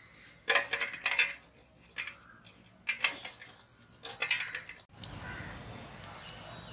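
Eggs clicking against one another and against the aluminium pot as they are set into it by hand, in several quick clusters of clicks. Near the end the clicking stops and a steady low background noise takes over.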